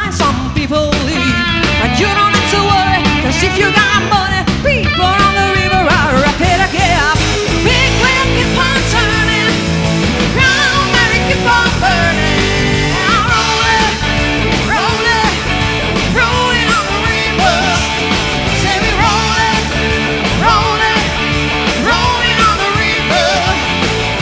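Live rock band playing a medley: electric guitar, keyboards, bass and drums under sung lead vocals. The sound gets brighter and fuller about six seconds in.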